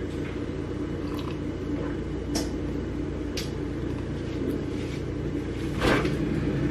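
A few faint gulps of water from a plastic cup over a steady low hum, then about six seconds in a refrigerator's freezer door is pulled open with a short knock.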